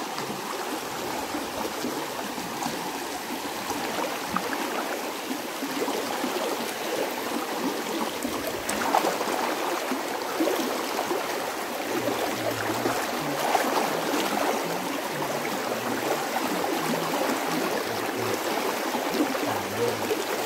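Shallow, fast rocky stream rushing and splashing steadily over stones.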